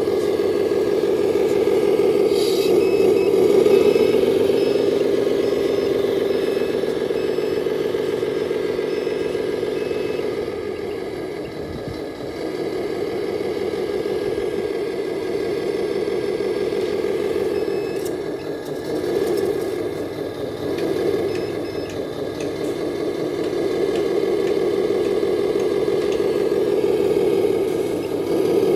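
1/14 scale RC Mercedes-Benz Arocs dump truck running: a steady engine drone that swells and eases as it drives back and forth, with light rattling and faint repeated beeping at times.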